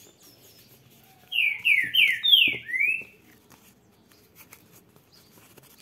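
A bird calling: a quick, loud series of about five falling whistled notes, then one rising note, starting about a second and a half in.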